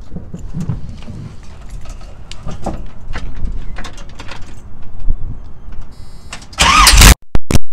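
Carbureted engine in an old pickup firing up about six and a half seconds in, suddenly very loud and overloading the microphone so the sound breaks up in gaps. It runs through a makeshift exhaust of loosely joined pipes with a large exhaust leak. Before that, low rumbling and scattered knocks of handling.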